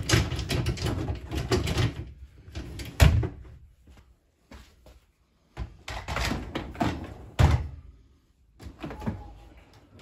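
Metal wire racks of a Neff dishwasher rattling as they are rolled back in on their rails, each hitting home with a sharp clunk: the upper rack about three seconds in, the lower rack about seven and a half seconds in. Softer knocks follow near the end.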